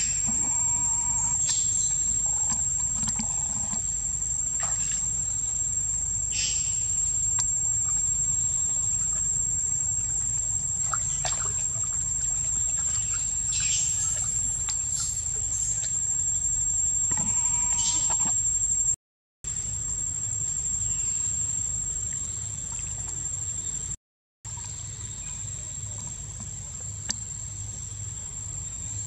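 Steady high-pitched drone of insects, likely crickets, with scattered short high calls over it; the sound cuts out twice for a moment in the second half.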